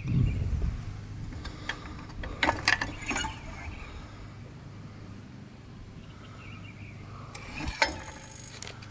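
Light metallic clicks and rattles from handling the hinged metal cover of an aerial-lift bucket's control box: a quick cluster about two and a half seconds in, and a sharper clatter near the end.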